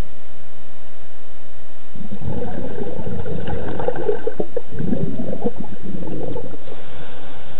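Scuba diver breathing through a regulator underwater: a quieter stretch, then a long burst of exhaled bubbles gurgling past the microphone from about two seconds in until past six seconds.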